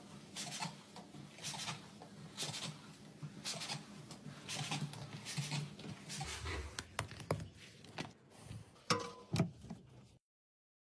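Flat spray mop's fabric pad swishing across a laminate floor in repeated back-and-forth strokes, about one a second. A few sharp clicks follow near the end.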